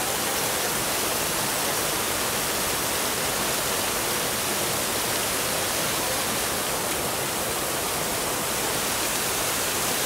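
Waterfall pouring as a curtain of spray past a rock overhang, heard from close behind the falling water: a steady rushing hiss.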